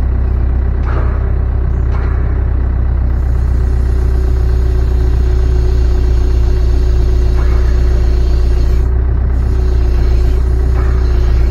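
Hydraulic drive of a homemade cylinder machine running steadily with a loud low hum and a faint steady whine over it, as it slowly draws the rod out of a D-6 dozer blade cylinder. A few faint knocks and clanks come through now and then.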